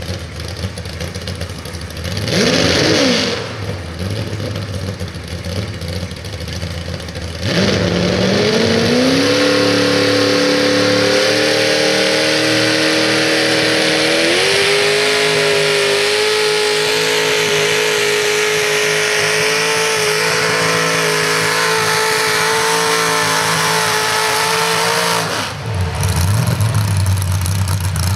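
Mini modified pulling tractor's supercharged engine: a rough idle with one short rev, then a full-throttle launch about seven seconds in. The pitch climbs and then holds, steps higher about halfway through the pull, and the engine is shut down sharply near the end. A lower engine rumble follows.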